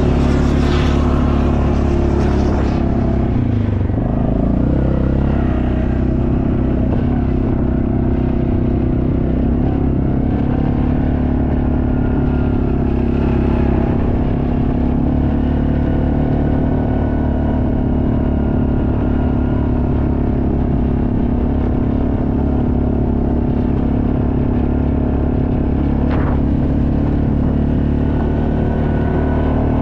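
ATV engine running steadily under way, heard close from the machine itself; its revs drop and then climb back about four seconds in.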